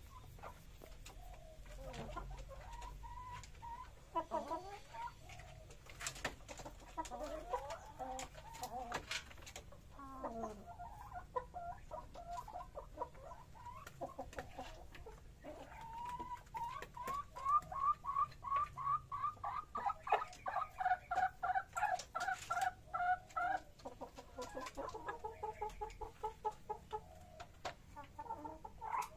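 Chickens clucking in short, repeated calls. About halfway through they break into a long fast run of clucks, several a second, which is the loudest part, and a softer run follows near the end.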